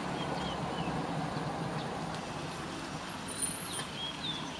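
Distant road traffic: a steady outdoor rumble with a low vehicle hum that fades away over the first couple of seconds, and a few faint high chirps.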